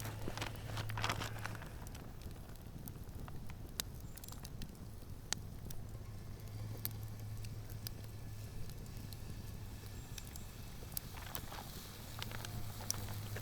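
Campfire crackling, with scattered sharp pops over a low hum that comes and goes.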